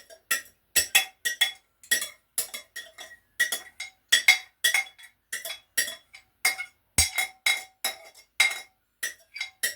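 A kitchen utensil clinking repeatedly against a metal pot as food is put into it, about three strikes a second, each with a brief metallic ring, and one heavier knock about seven seconds in.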